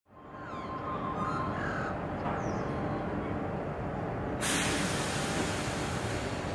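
Birds calling over a steady low rumble, then a sudden steady hiss starts about four seconds in as a heritage electric tram begins moving through the depot yard.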